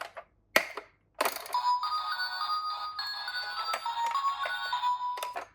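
Electronic toy melody: a simple beeping tune of stepped single notes that starts about a second in, after a sharp click, and stops just before the end.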